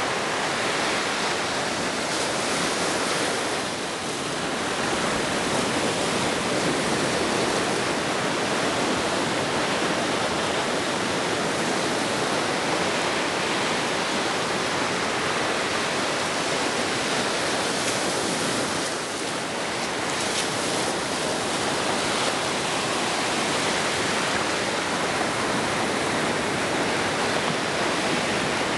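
Ocean surf washing steadily on the beach, a continuous rush of breaking waves that eases briefly twice.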